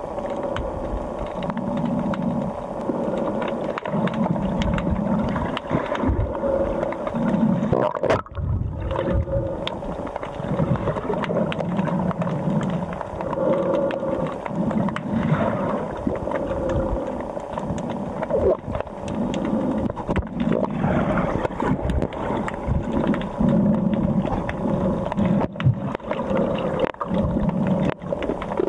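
Muffled underwater noise picked up by a submerged camera: a low rumble that swells and fades every second or two over a steady hum, with scattered knocks.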